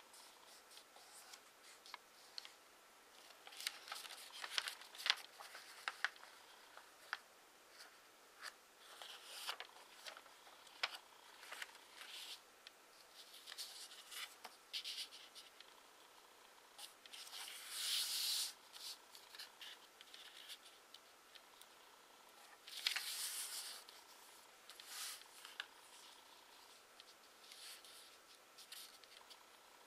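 A sheet of origami paper being handled and folded by hand: faint scattered crinkles and taps as it is moved and creased, with two longer rubbing swishes a little past the middle as folds are pressed flat.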